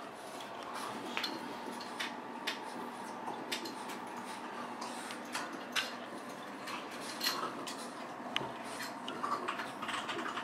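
Scattered light clicks and taps, irregular and several a second, from pet rats moving about a wire cage, over a steady faint hum.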